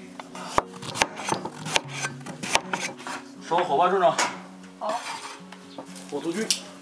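Kitchen knife chopping pumpkin on a wooden cutting board: a series of sharp knocks with a few clinks against an enamel plate, over soft background music.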